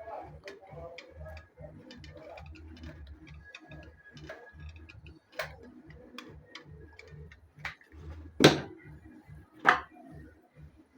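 Hard, scattered clicks and knocks of cylindrical 18650 lithium cells being handled and fitted together, with three sharper knocks in the second half, the loudest about eight and a half seconds in.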